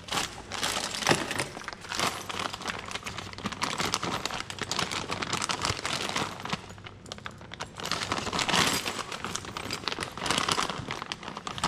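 Clear plastic bag full of metal washers and screws being handled, crinkling with many small clicks of the hardware shifting inside.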